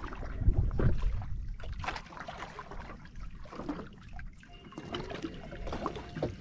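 Water splashing and trickling against a boat's hull at sea, uneven, with a few low thumps about a second in.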